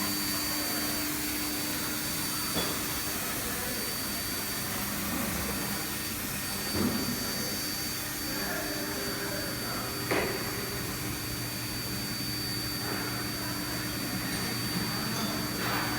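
5-axis CNC router running: a steady hiss of motor noise with a thin, high, constant whine. A few short knocks come at irregular moments.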